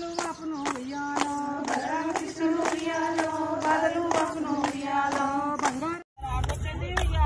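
A woman's voice singing a Telugu Bathukamma folk song, with hand claps keeping time at about two a second. Near the end the sound cuts out for a moment, and the singing and clapping resume over a low rumble.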